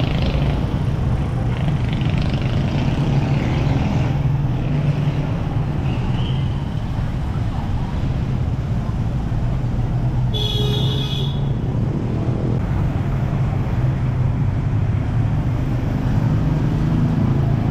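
Street traffic of motorcycles and motorcycle tricycles, their engines running steadily, with one short high horn toot about ten seconds in.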